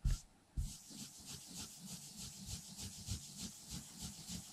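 Cloth wrapped around a flat tool, wet with brake cleaner, rubbed quickly back and forth over the raised letters of a polished alloy motorcycle engine case, about three to four strokes a second, wiping away overrun paint. A short knock at the start.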